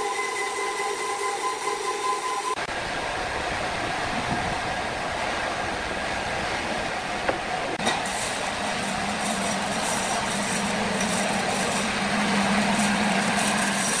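Horizontal band sawmill machinery running steadily. The sound changes abruptly about two and a half seconds in, and a low hum comes in and grows stronger toward the end.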